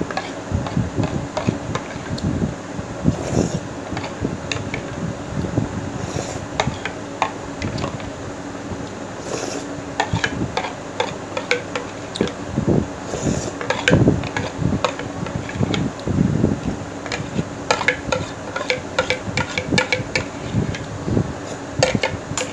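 Eating from a glass bowl: a metal spoon clinking and scraping against the glass, with slurping and chewing as the porridge is tipped toward the mouth. The clinks come thicker in the last few seconds. A steady electric fan hum runs underneath.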